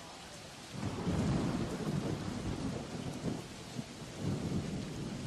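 Steady rainfall hiss; about a second in, a long roll of thunder rumbles in and keeps rolling, swelling and easing.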